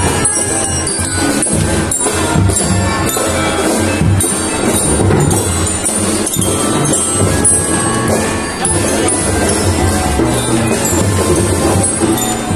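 A children's marching band playing a tune: pianicas (melodicas) and keyboards carry the melody over a steady drum beat, with the ringing of a bell lyre.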